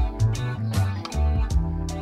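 Background instrumental music with a bass line and a steady drum beat.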